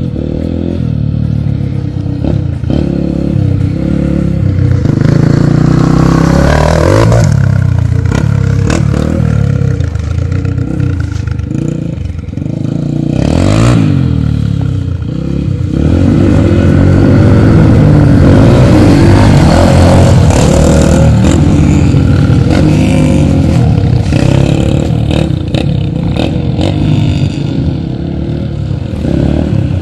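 Yamaha TTR125 dirt bike's single-cylinder four-stroke engine revving up and falling back again and again as it rides the trail, rising and falling in pitch and getting louder as the bike comes near.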